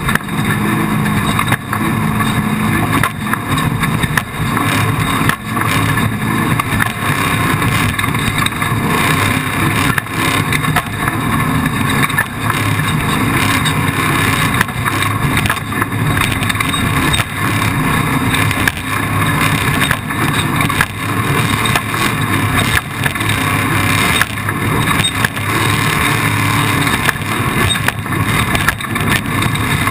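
Off-road race vehicle's engine running continuously at a steady loud level, with frequent short knocks and rattles.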